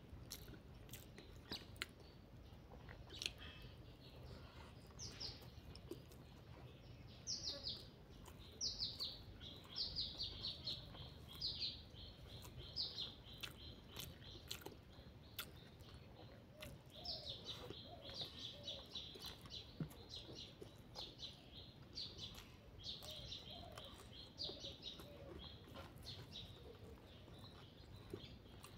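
A bird chirping: runs of short, quick falling chirps repeated many times, starting about a quarter of the way in and going on until near the end. Underneath are faint clicks of someone chewing and working rice with her fingers.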